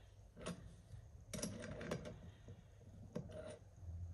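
Adjustable spanner clicking and knocking on a brass compression nut on copper pipe as the nut is undone and the spanner lifted off: a handful of short metallic clicks, with a cluster about a second and a half in.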